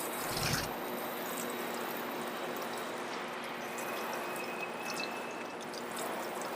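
Garden hose spraying water onto a car headlight lens, a steady rush rinsing off bug spray and soapy water. A dull thump comes about half a second in.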